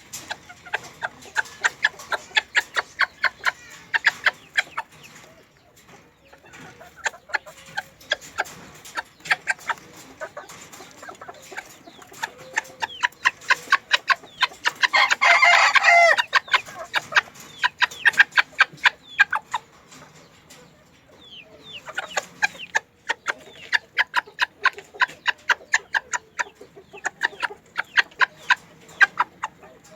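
Bantam chickens clucking in rapid runs of short calls, with a bantam rooster crowing once near the middle for about two seconds.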